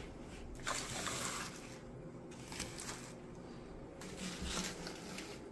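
Soft rustling and handling noises, a few brief bursts, as household items are picked up and moved around among paper and plastic on a table.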